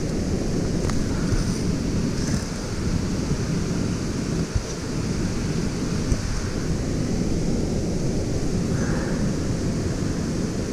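Steady rushing noise of water falling at a waterfall, with a few small scratches and knocks from a bare hand digging in soil and roots for earthworms.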